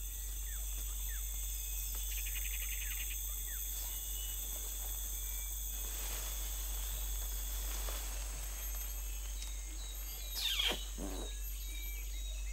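Tropical forest ambience: a steady insect drone with scattered short bird chirps and a pulsing insect trill about two seconds in. About ten and a half seconds in, a loud animal call sweeps steeply down in pitch.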